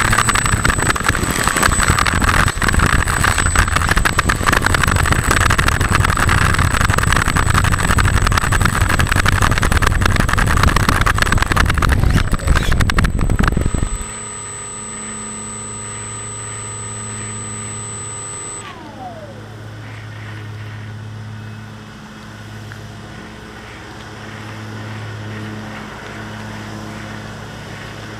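Electric motor and pusher propeller of an E-flite Opterra 2 m RC flying wing taxiing on asphalt: a loud, steady rushing noise with a thin high whine. About 14 seconds in it drops suddenly to a quieter low hum, and a few seconds later a tone glides downward and the whine stops.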